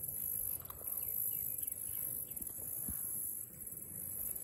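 Steady high-pitched buzz of insects from the shoreline, over a low rumble of wind and water, with a couple of faint knocks.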